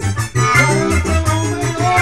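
Instrumental Romanian folk dance tune (an argeleana) played live on a Yamaha V50 keyboard with accordion, over a steady beat and a bouncing bass line.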